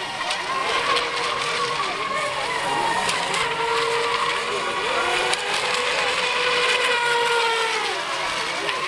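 Several electric RC racing boats running at full speed, their motors whining at different pitches that rise and fall as the boats pass and turn.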